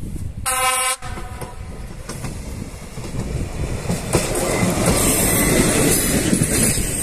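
Czech class 810-family diesel railbus giving one short horn toot about half a second in, then running past close by, the engine and the wheels on the rails growing louder toward the end.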